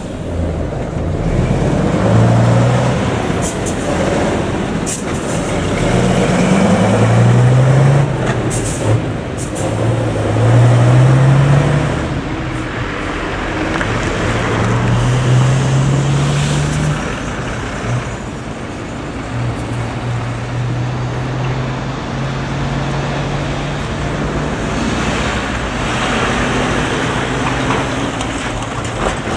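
Road traffic pulling away: a bus, a lorry and cars accelerating past one after another, their diesel engines rising in pitch and dropping back as they shift up through the gears, over a steady hum of tyre and engine noise.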